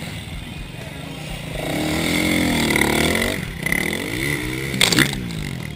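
Motocross bike engines revving hard, their pitch wavering up and down. About four seconds in, a bike close by rises and then falls in pitch. A sharp knock about five seconds in is the loudest sound.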